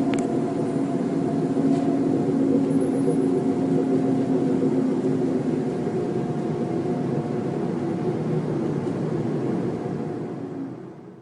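A steady droning hum with several held tones over a low rumbling noise, fading out near the end. This is one of the unexplained 'strange sky sounds'.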